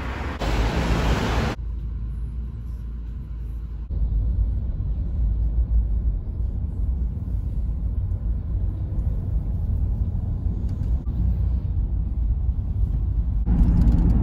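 Car cabin noise while driving: a steady deep rumble of engine and tyres heard from inside the car, growing louder near the end. It opens with about a second and a half of hissy outdoor street noise that cuts off abruptly.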